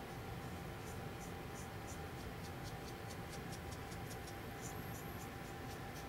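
Faint, soft scratching of a paintbrush working paint onto a small plaster bird wing in short, irregular strokes, over a steady low room hum.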